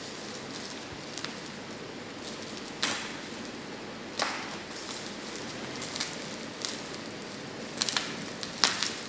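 Packaging being handled while a mini PC is unboxed: a steady rustling hiss with sharp crackles and taps every second or two, the loudest near the end.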